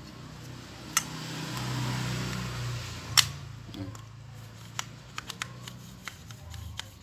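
Handling noise from an electric fan motor being checked by hand: two sharp metallic clicks, about a second and three seconds in, with a short rush of hiss between them, then light scattered ticks as the shaft is worked back and forth to test for play in its freshly fitted bushings.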